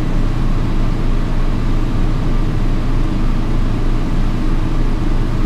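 Air-conditioning unit running with a steady, loud low hum and rumble.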